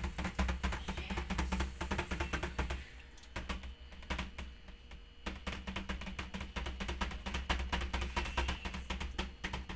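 Rapid, irregular clicking of puppies' claws on a tiled floor as they play and scuffle, easing off for a couple of seconds around the middle, over a steady low hum.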